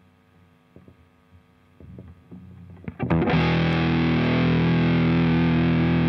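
Low hum and a few faint string clicks. About three seconds in, an electric guitar through a JOYO Hot Witch Big Muff-style fuzz pedal comes in with a loud, sustained distorted chord. The pedal is in Modern mode with all its controls set flat.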